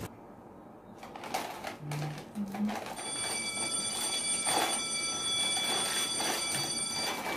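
A few soft knocks, then a steady high electronic tone with overtones that starts about three seconds in and holds for about four seconds.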